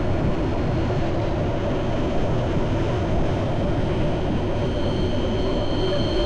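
Steady rumble of a moving vehicle, with two high whining tones that grow stronger about five seconds in.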